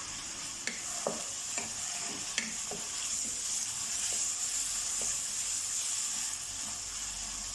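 Raw chicken cubes sizzling steadily in hot oil and garlic-ginger paste in a non-stick wok, stirred with a wooden spatula. The spatula knocks and scrapes lightly against the pan several times over the first five seconds.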